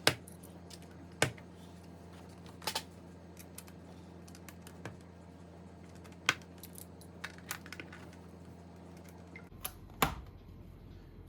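Plastic clone Lego bricks being handled and clipped together: irregular sharp clicks and clacks, a few at a time, the loudest about ten seconds in.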